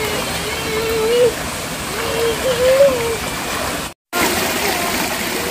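Stream water running steadily, with a high voice rising and falling twice in the first few seconds. The sound cuts out for a moment about four seconds in.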